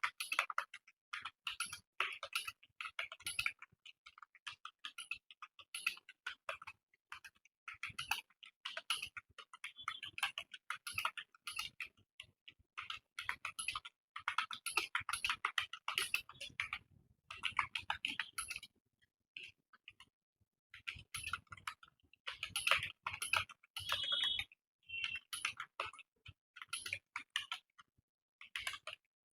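Computer keyboard typing: fast runs of key clicks with short pauses between them, as a typing-speed test is typed.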